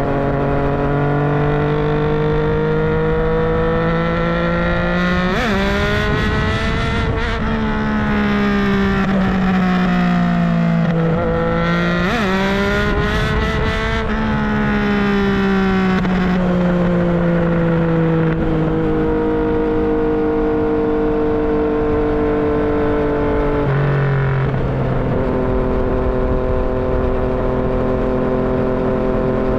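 Yamaha MT-09's three-cylinder engine and exhaust under way, engine speed climbing slowly, then jumping sharply twice with a slide down after each jump, like gear changes. In the later part it drops and settles to a steady note.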